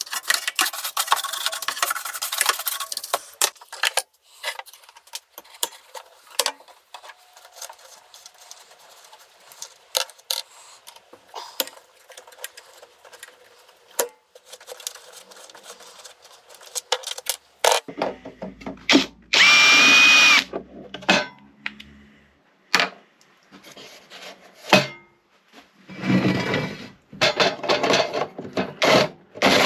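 Scattered clicks and knocks of tools and metal parts being handled, with a power drill running steadily for about two seconds past the middle, then dense clattering near the end.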